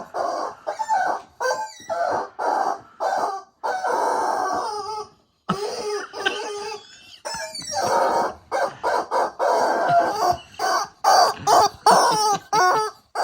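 Rubber squeaky chicken dog toy squawking over and over as a dog bites down on it: a few long squawks at first, then short ones coming quicker and closer together in the second half.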